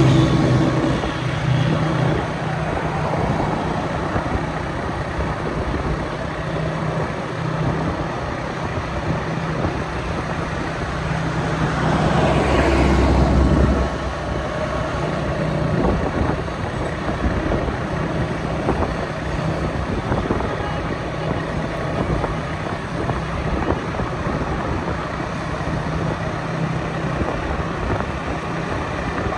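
Road traffic noise with a steady engine hum. One vehicle passes close about twelve seconds in, louder for a couple of seconds with a deep rumble.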